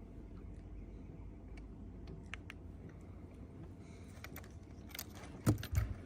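Scattered light clicks and metallic rattles of small gear being handled in a boat, over a faint low rumble, then two heavy thumps near the end.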